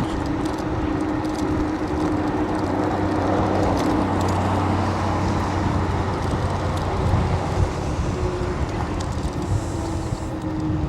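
Steady wind and road noise from riding a Wolf King GT electric scooter at speed, with a steady low hum under the rush of air.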